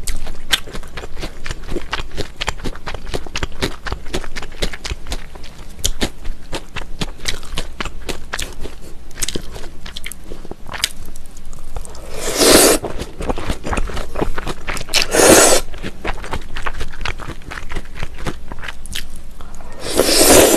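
Close-miked chewing of mulhoe, cold raw fish with crunchy vegetables and somen noodles in a spicy broth, with many small wet clicks and crunches. Three loud slurps of noodles break in, about twelve seconds in, about fifteen seconds in, and near the end.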